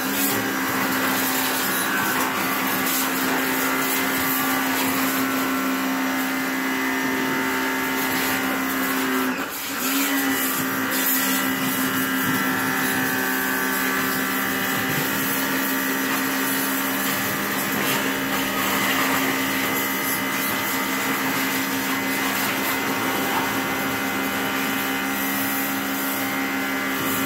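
Electric pressure washer running steadily, its motor humming under the hiss of the water jet spraying a motorcycle. About a third of the way through it dips briefly in pitch and level, then picks up again.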